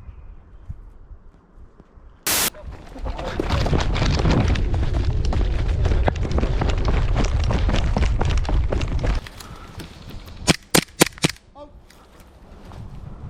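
Airsoft replica gunfire: a short sudden burst about two seconds in, then a dense rattle of rapid shots over a heavy low rumble for about six seconds, and four sharp cracks in quick succession near the end.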